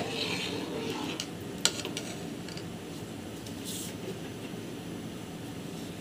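Two sharp metallic clicks of utensils against an aluminium cooking pot, one at the start and one a little under two seconds in, over a steady low rumble; a short rustle near four seconds as roasted vermicelli goes into the milk.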